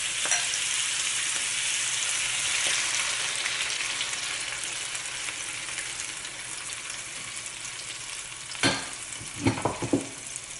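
Curry sauce sizzling as it is poured into a hot wok of stir-fried shrimp: a steady hiss that slowly dies down. A few sharp knocks and clinks sound near the end.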